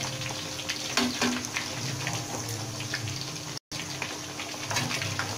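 Chicken and grated galangal deep-frying in a steel wok of hot oil, bubbling and crackling steadily. A metal ladle stirs it and knocks once against the pan about a second in. The sound cuts out for an instant about three and a half seconds in.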